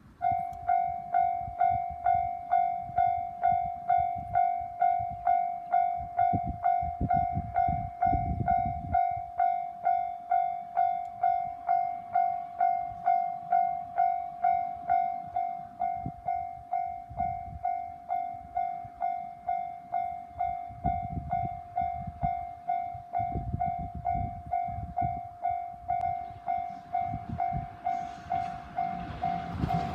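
Japanese level-crossing warning bell starting suddenly and ringing steadily at about one and a half strokes a second. Near the end the rumble of an approaching train grows under it.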